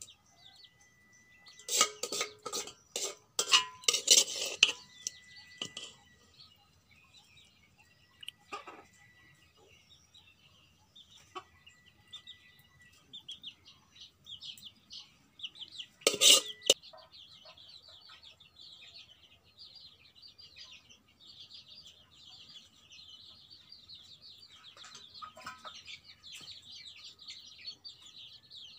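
A steel spoon clinks against a steel cooking pot and plate as curry is served: a cluster of sharp clinks in the first few seconds and one more about halfway. From about halfway on, small chicks peep continuously in quick high chirps.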